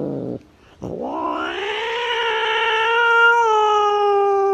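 A recording of a cat caterwauling, played back. One long yowl falls in pitch and breaks off just after the start. About a second in, a second yowl rises and is then held at a steady pitch.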